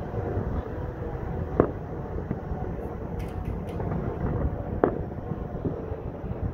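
Distant fireworks going off over the city: single sharp bangs about a second and a half in and again near five seconds, with faint crackling around three seconds, over a steady low rumble.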